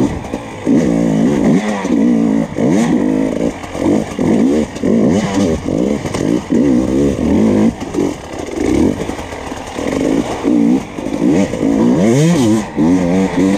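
Enduro motorcycle engine under hard riding, revving up and dropping back over and over, about once a second, as the throttle is worked over rough dirt.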